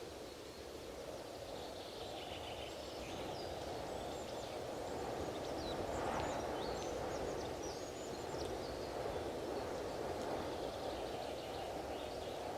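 Strong wind rushing, swelling into a gust about halfway through and easing off, with small birds chirping many times over it.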